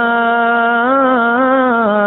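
Quran recitation by a male reciter in melodic tajweed style: one long held note with slight rises and falls in pitch, a drawn-out vowel.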